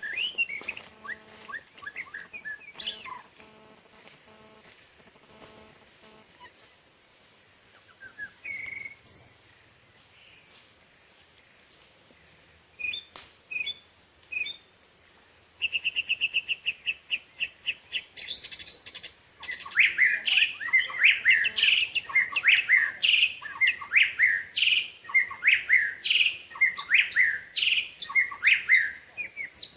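White-rumped shama singing: a fast run of evenly repeated notes about sixteen seconds in, then loud, varied whistled phrases from about eighteen seconds on, over a steady high hiss.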